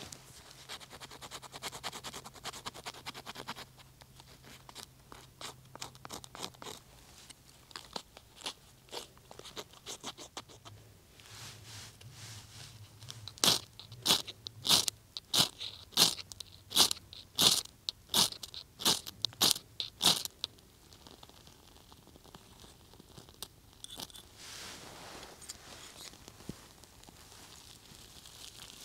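A fire-steel striker scraping birch bark into fine shavings, then about fourteen sharp rasping strikes of the striker down a ferro rod, about two a second, throwing sparks onto a tinder nest to light a fire.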